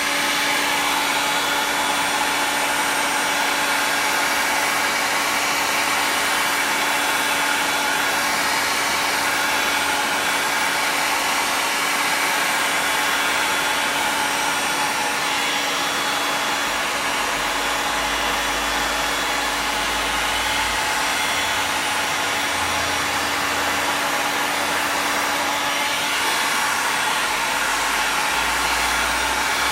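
2000-watt electric heat gun running steadily: an even rush of blown air with a constant motor hum. A low rumble comes and goes in the second half.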